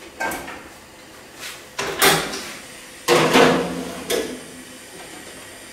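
Clattering knocks of metal pizza pans being handled and put into an oven, with the oven door and shelf knocking; about half a dozen sharp knocks, the loudest two to three and a half seconds in.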